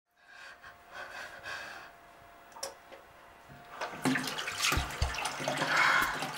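Water running from a bathroom tap into a sink basin, faint at first and much louder from about four seconds in.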